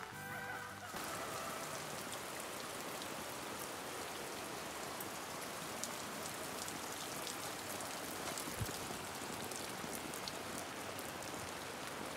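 Steady rain falling on the plastic sheeting of hoop tunnels, with fine drop ticks through an even hiss.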